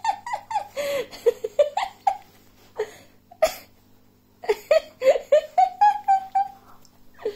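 A person laughing in repeated bursts, with a quick run of rhythmic 'ha-ha' pulses about halfway through that ends in a held note.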